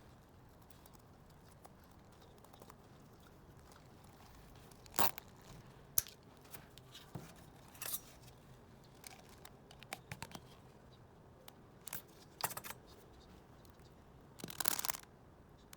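Squishy stress-ball toy being squeezed by hand, giving a handful of short, irregular scrunching sounds, the longest one near the end.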